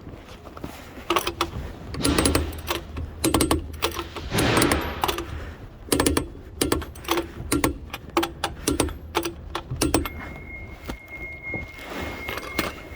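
Metal tools and parts clinking and clattering in an irregular run of clicks and knocks, as during work on a car wheel. A faint steady high whine comes in about ten seconds in.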